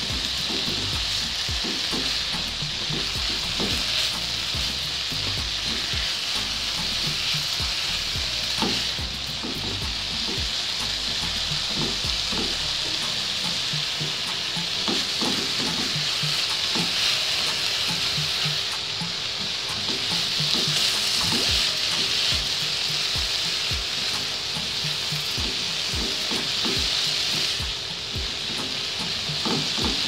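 Shredded cabbage and vegetables sizzling steadily in oil in a non-stick frying pan, stir-fried with a spatula that scrapes and knocks against the pan again and again.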